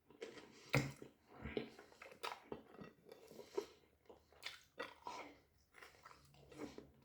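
A person biting into and chewing a doner kebab close to the microphone: irregular clicking, crunching mouth sounds, the loudest just under a second in.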